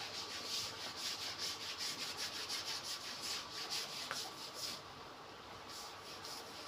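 Stiff brush scrubbing a hard wet surface in quick back-and-forth strokes, about three a second, stopping about three-quarters of the way through.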